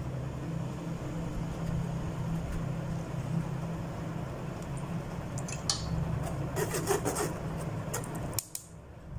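Flour being rubbed and shaken through a metal mesh sieve by hand: a steady scratchy rubbing with a few sharp metal clicks in the second half, over a low steady hum. It all stops suddenly near the end.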